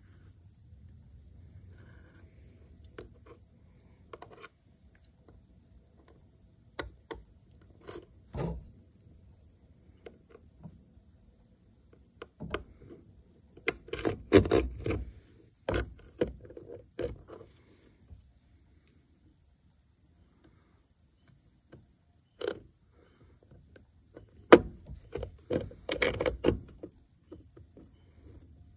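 Crickets chirping steadily throughout, with scattered clicks and knocks of metal hardware as a round electrical bulkhead connector is handled and fitted onto threaded studs through a mounting plate. The knocks cluster in two spells, midway and near the end.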